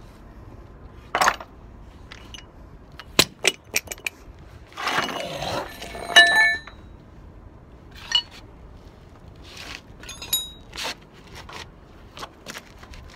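Metal parts from a truck's wheel hub clinking and scraping as the outer wheel bearing and hub pieces are handled: scattered sharp clinks, some of them ringing, with a scrape about five seconds in and the loudest ringing clink just after it.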